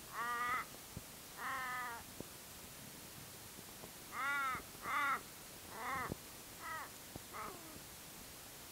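A crow or raven calling: a series of drawn-out, arching caws, two early on and then five in a run that grow shorter and fainter as it trails off.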